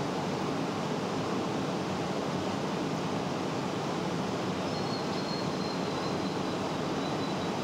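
Steady background noise hiss with no distinct events, and a faint thin high whine that comes in about five seconds in.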